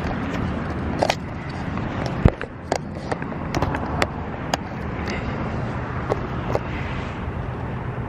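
Handling noise from a hand-held phone: rubbing and a series of sharp knocks and taps as the phone is moved about, the loudest knock a little over two seconds in, over a steady low rumble.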